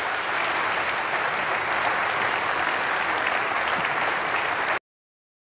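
Audience applauding steadily, then cut off abruptly near the end.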